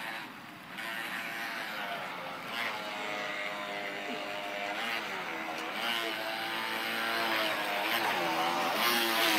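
Radio-controlled model speedboats, a Kyosho Jet Stream 800 and a Riviera 800, running on the water: a motor whine that rises and falls in pitch with the throttle, growing louder near the end as one boat passes close.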